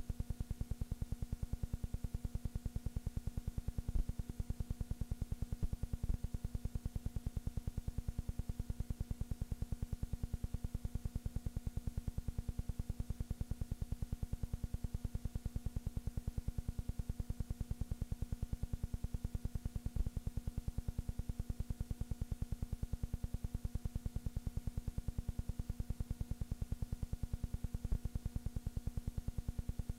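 A steady mechanical hum with a fast, perfectly even ticking clatter underneath, and a few sharper clicks scattered through.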